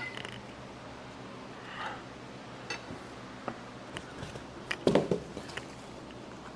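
Scattered light clicks, taps and rustles from engine parts and packaging being handled and set down, with a louder cluster of handling noise about five seconds in.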